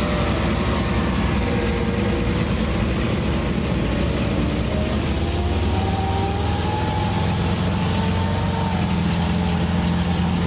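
Panzer IV Ausf. H tank's engine running as it drives slowly along a muddy track: a steady low drone that grows louder about six seconds in, with fainter higher tones sliding up and down in pitch.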